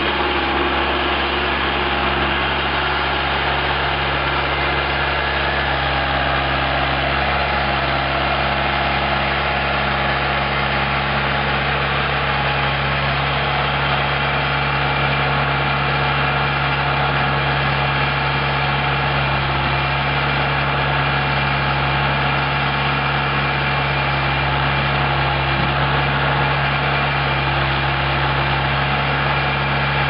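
Jinma 354 tractor's diesel engine running steadily at a constant speed while working the backhoe.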